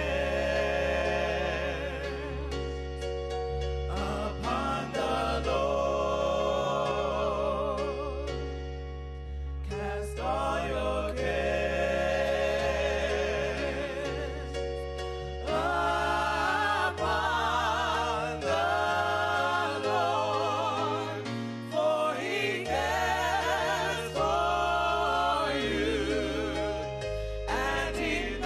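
Gospel music: singing voices holding notes with vibrato over a steady instrumental backing.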